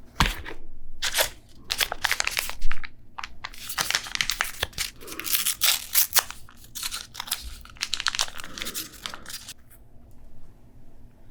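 Food wrapping being handled, crinkling and tearing in quick, sharp rustles as a hot dog is wrapped into a slice of pepperoni pizza. It eases off about two seconds before the end.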